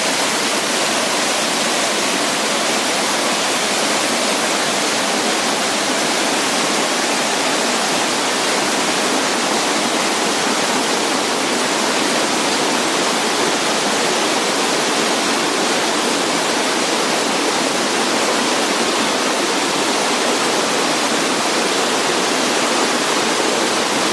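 Waterfall: steady rushing and splashing of falling water, an even hiss with little low rumble.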